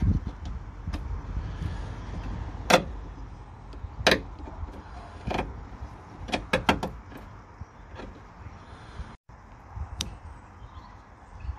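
Sharp clicks and taps of a rubber cable grommet being pushed, then levered with a steel tool, into its hole in a pickup's steel tailgate panel: single clicks every second or so, a quick cluster of three in the middle, and one more near the end. A steady low rumble runs underneath.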